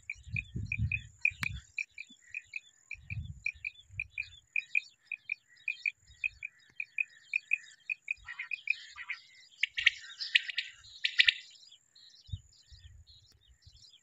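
Quail calling: a steady series of short, high chirps, several a second, with louder, harsher calls about ten seconds in. A few low thumps come in the first few seconds.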